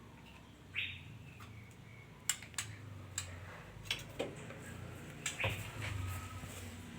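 Female white-rumped shama giving short, sharp calls and clicks at irregular intervals, over a faint low hum.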